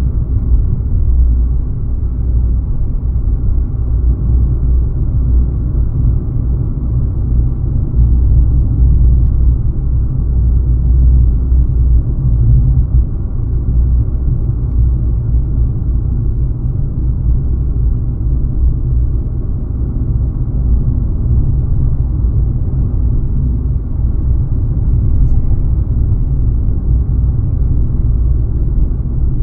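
Car driving along: a steady low rumble of tyres and engine, dull and muffled with nothing high-pitched in it.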